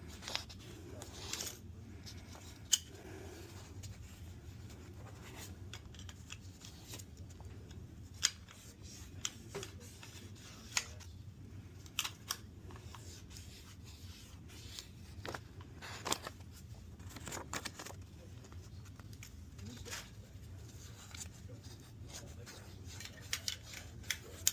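Hand-sanding a small steel 1911 part with fine-grit sandpaper: light scratchy rubbing broken by irregular sharp clicks and taps as the part and paper are handled, over a steady low hum.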